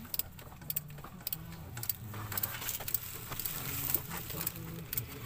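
Scattered light clicks and metallic taps, irregular and close together, from tools and parts being handled, over a faint low hum.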